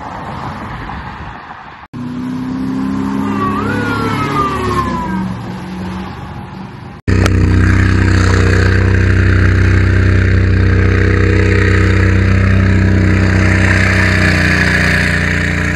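Fire truck engine running steadily as the truck drives along, heard loud from inside the cab; it starts abruptly about seven seconds in, after a cut. Before that, street traffic with a vehicle engine rising and falling in pitch.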